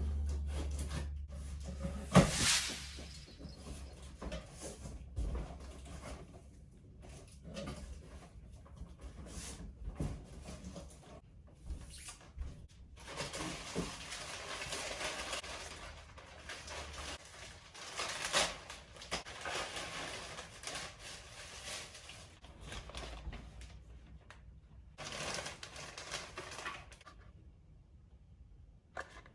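Bicycle packaging being handled during unboxing: a sharp knock about two seconds in, then on-and-off rustling and scraping.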